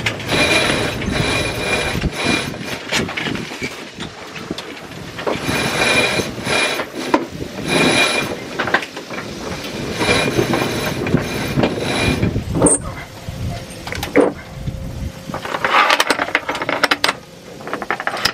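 Sailboat's sheet winch ratcheting and lines running through deck blocks as the crew tacks, in several spells of a second or two, with a couple of sharp knocks about two-thirds of the way in.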